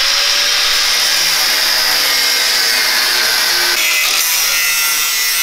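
Angle grinder with a cutting disc running steadily through the steel exhaust pipe, cutting off the rear silencer. The tone of the cut changes about four seconds in.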